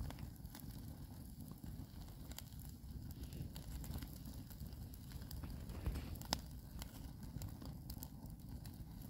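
Wood campfire burning, with scattered crackles and sharp pops from the sticks and one louder pop about two-thirds of the way through, over a low steady rumble.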